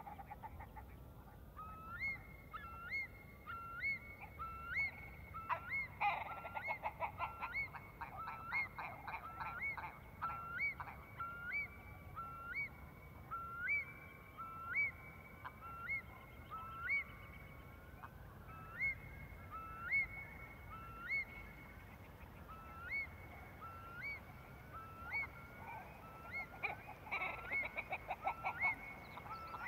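A flock of birds calling in a field recording: a steady series of short, rising call notes about once a second at several pitches, with bursts of fast, rapid calls about six seconds in and again near the end.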